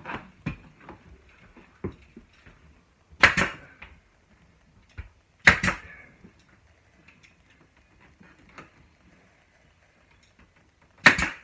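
Pneumatic nail gun firing three times into wooden window trim, each shot a sharp double crack with a brief hiss of air, with light knocks of the trim being handled between them.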